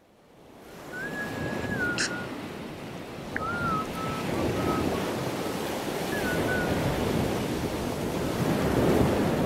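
Surf washing onto a beach, a steady wash of waves that fades in over the first second. A few short whistled tones sound over it, about a second in, again around four seconds, and once more after six seconds.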